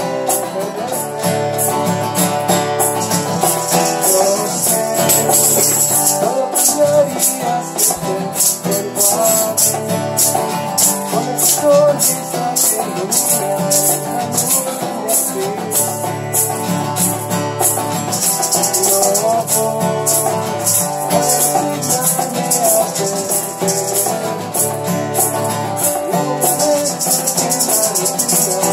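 Acoustic guitar strummed to accompany a man singing a romantic song in Spanish, with hand shakers shaken in a steady rhythm.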